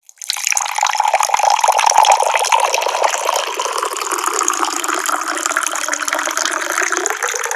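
Tap water pouring in a steady stream, starting just after a brief moment of silence and thinning out near the end.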